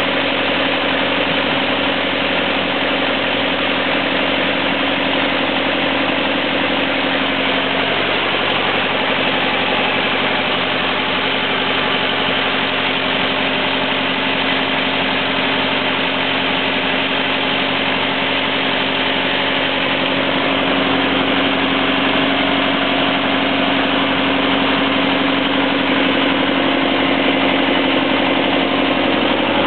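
Paddlewheel barge's engine running steadily. Its note shifts slightly about eight seconds in, and it grows a little louder around twenty seconds in.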